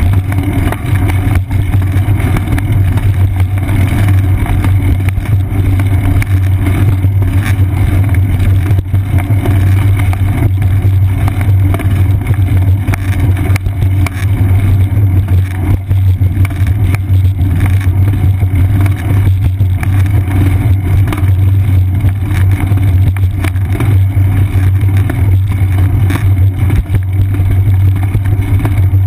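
Steady low rumble of a rolling bicycle picked up through a seat-post-mounted GoPro Hero 2 in its housing: wind and tyre-on-pavement vibration blend into a constant deep hum.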